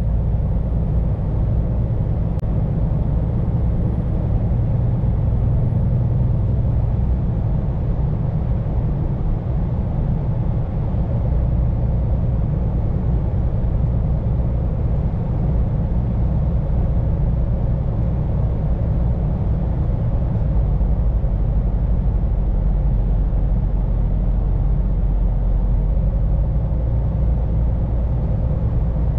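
Scania P410 car carrier truck on the move: a steady engine drone and road noise heard from inside the cab.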